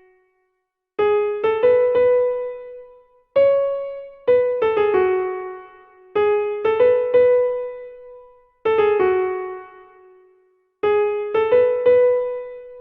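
Background music: a simple electric-piano-style keyboard melody, short phrases of three or four quick notes that ring and fade, a new phrase about every two and a half seconds.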